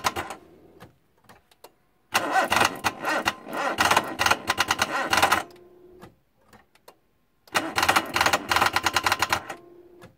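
Starter motor cranking a Toyota VVT-i four-cylinder engine in three bursts of a few seconds each, without the engine catching. The battery is run down: the starter is not getting enough voltage to start the motor.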